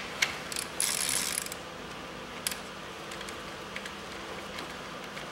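A hand socket ratchet clicking while the ignition coil hold-down bolts are tightened: a few clicks, then a quick run of clicks about a second in, then only an occasional tick.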